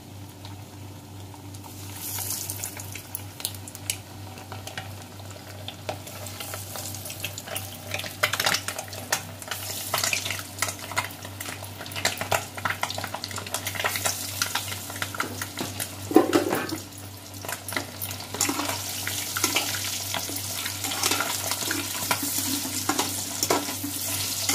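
Flour-coated boiled eggs frying in hot oil in a metal kadhai: sizzling and crackling that starts about two seconds in and grows denser, with occasional knocks and scrapes of a metal slotted spoon turning the eggs.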